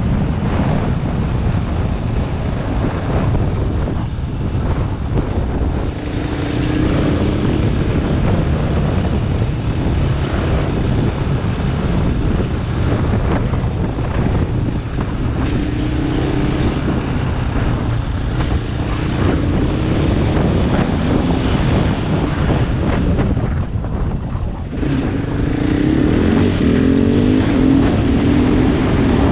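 Heavy wind buffeting on the microphone over a KTM 500 EXC's single-cylinder four-stroke engine while riding. The engine note rises and falls with the throttle several times and is plainest near the end.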